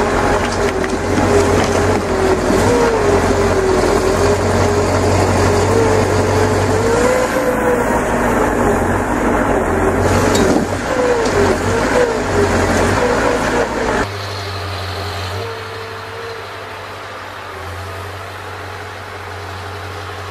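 Timber truck's loader crane at work: engine and hydraulics running under load, with a whine that rises and falls as the crane swings and grabs logs. About two-thirds of the way in it cuts abruptly to a quieter, steadier logging-truck diesel engine running.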